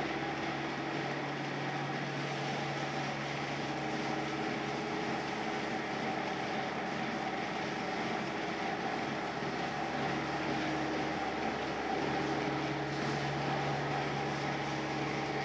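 A machine running steadily: a constant hum with a low drone and a few higher held tones, no breaks or changes.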